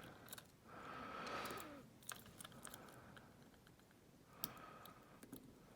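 Faint, scattered small clicks and scrapes of a pick working the back off a Schlage lock cylinder, with a soft handling rustle about a second in.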